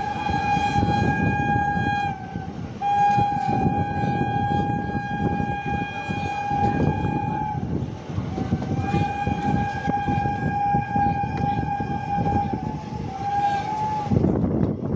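Indian Railways train horn sounding in long blasts: one is still going at the start and stops about two seconds in, two long blasts of about four to five seconds follow, and a short blast comes near the end. Under the horn is the steady rumble and clatter of the train running on the track.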